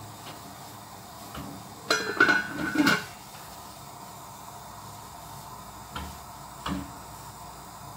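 Stainless steel lid set down on a wok, clattering and ringing for about a second, then two light knocks later on, over a steady hiss.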